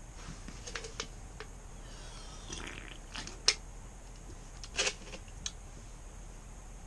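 Small clicks and rustles of handling, with one sharp click about three and a half seconds in and a brief scrape a little after it.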